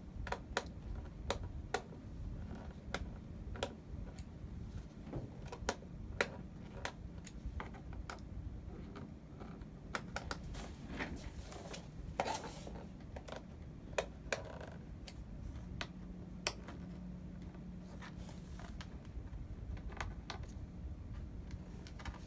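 Irregular clicks and taps of a plastic laptop case and small metal parts as a Chromebook's bottom cover is handled and its screws are removed with a screwdriver, over a low steady hum.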